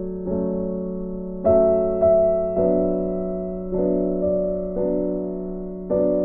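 Background music: slow, gentle keyboard chords, a new chord struck about once a second and fading before the next.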